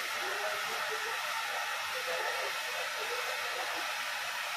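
Handheld hair dryer blowing steadily while drying a client's long hair.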